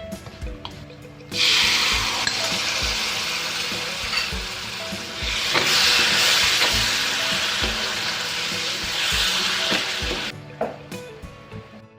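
Food frying in hot oil in a pan, a loud sizzle that starts suddenly about a second in and stops near the end.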